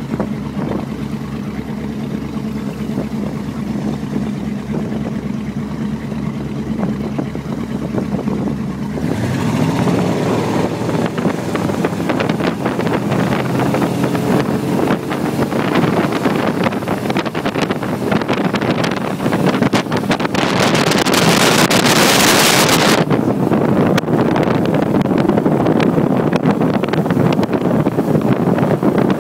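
Motorboat engine running steadily, then about nine seconds in its pitch rises as it speeds up and the rush of wind and water takes over; around twenty seconds in a loud hiss lasts about two seconds.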